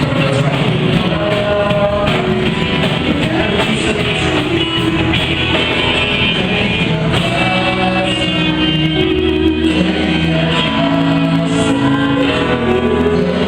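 Live worship band playing an upbeat song, with singing over guitar and other instruments.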